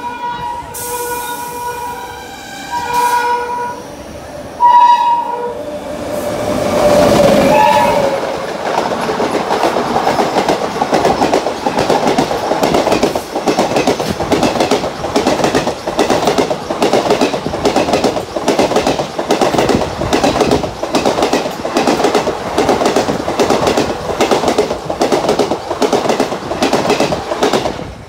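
WAP-7 electric locomotive horn sounding in several blasts, the loudest about five seconds in, followed by a lower-pitched horn. From about eight seconds in, a passing express train's coaches rush by close alongside, their wheels making a fast, regular clickety-clack over the rail joints.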